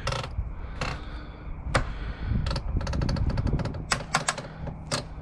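Wooden porch framing knocking and clattering as a section is lowered down. Irregular sharp knocks, some single and some in quick rattling runs, over a low rumble.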